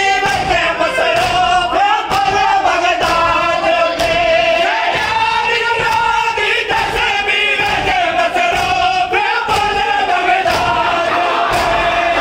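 A crowd of men chanting a Punjabi noha in unison, with rhythmic chest-beating (matam) slaps at roughly two a second. Near the end the chant gives way to a crowd's rough shouting.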